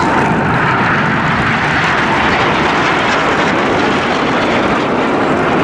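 Jet engines of the Red Arrows' BAE Hawk T1 jets as the formation breaks apart overhead: a steady, loud rushing noise that swells a little after the first second.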